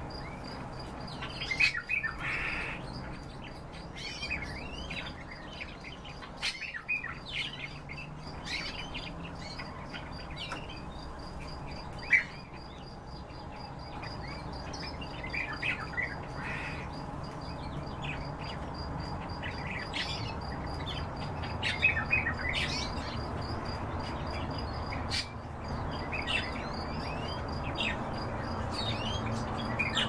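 Several caged birds chirping and calling in short, scattered bursts, overlapping at times, over a faint steady high-pitched tone. One sharp click about twelve seconds in.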